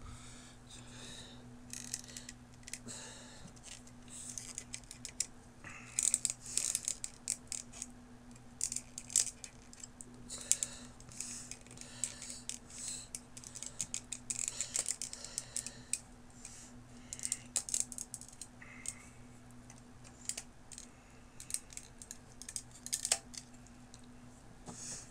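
Small plastic model airliner and its parts being handled: irregular clicks, taps and rustles, over a steady low hum.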